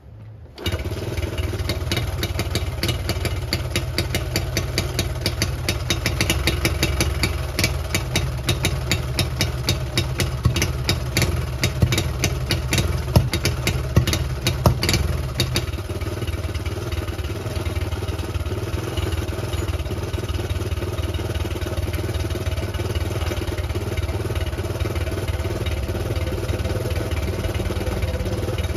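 Honda C70's small single-cylinder four-stroke engine fires up about half a second in and runs with a rapid pulsing beat. The revs rise and fall through the first half, then it settles to a steadier idle. It is running poorly, which the owner puts down to the carburettor that has not yet been cleaned.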